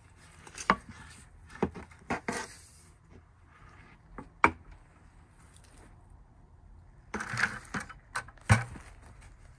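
A long-handled shovel scooping worm compost out of a bathtub worm bin and tipping it into a plastic bucket: a series of sharp knocks and short scrapes, in two clusters about two seconds apart and again near the end.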